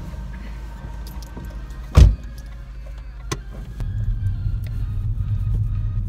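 Low rumble inside a car's cabin, with one loud thump about two seconds in and a smaller click a second later; the rumble grows louder about four seconds in.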